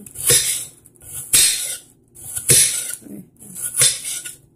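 A kitchen knife slicing through an onion onto a wooden cutting board: about four separate cuts, roughly a second apart, each a sharp knock with a short crunch.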